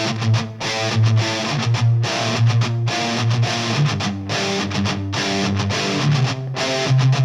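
Music led by a distorted electric guitar playing chords.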